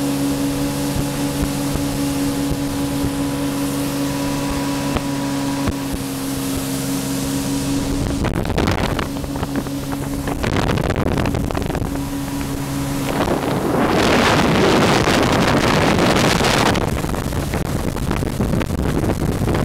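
Jet ski engine running at a steady drone. From about eight seconds in, a rush of water spray and wind on the microphone grows over it and mostly buries the engine, loudest for a few seconds past the middle.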